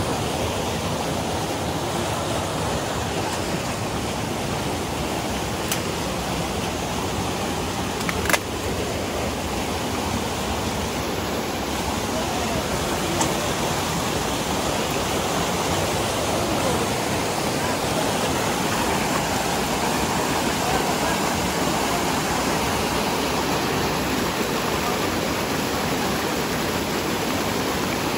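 Rocky stream rushing steadily over stones and small cascades. A single sharp knock about eight seconds in.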